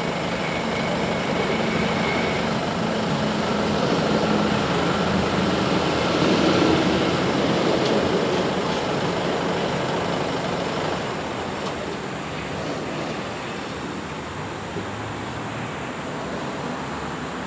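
Steady vehicle engine or traffic noise, swelling to its loudest about six seconds in and easing off after about ten seconds.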